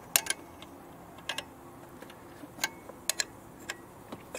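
Metal clicks of a combination spanner being moved and tightened on the high-pressure fuel line nut of a Kia 2.0 CRDi diesel injector, about eight sharp clicks at irregular intervals.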